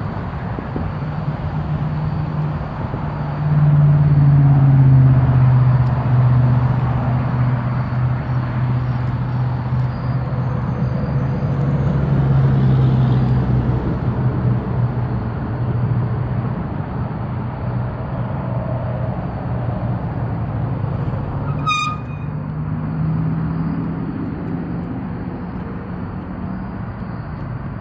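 Road traffic noise, with a car engine hum swelling and fading as vehicles pass, and a single sharp click about three-quarters of the way through.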